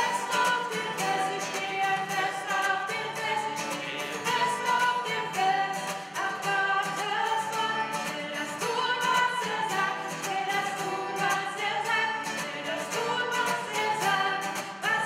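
Singing accompanied by a strummed acoustic guitar.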